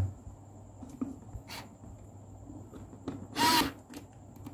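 Cordless drill-driver running briefly, for about half a second a little past the middle, driving down the terminal screw of a miniature circuit breaker to clamp a wire. A few faint clicks of the wire being handled come before it.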